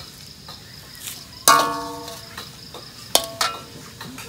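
Crickets chirping steadily in the background. About a second and a half in, a sharp clink rings out and fades, and a second, shorter clink follows near the three-second mark.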